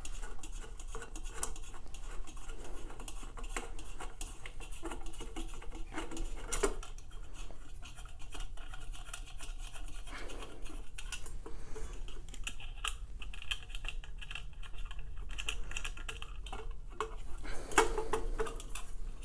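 Light clinks, taps and scrapes of parts being handled as a light fixture is fitted onto a ceiling fan, scattered irregularly, over a steady low hum.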